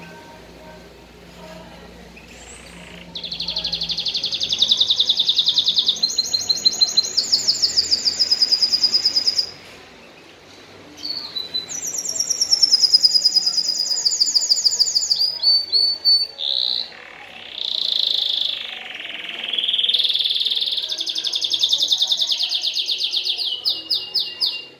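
Domestic canary singing: long phrases of fast, rolling trills and chirps, high-pitched. The song starts about three seconds in, with short breaks near ten and sixteen seconds.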